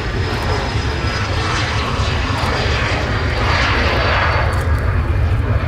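JASDF U-125A twin-turbofan jet at take-off power on its take-off roll. The jet roar swells as it passes and lifts off, over a steady low rumble, while a high turbine whine fades out.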